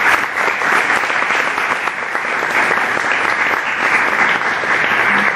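Audience applauding, a dense steady clatter of many hands clapping at the close of a talk.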